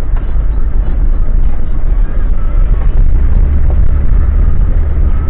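Engine and tyre noise heard inside the cabin of a Land Rover Discovery 1 driving slowly along a rutted dirt-and-gravel track: a steady, heavy low rumble.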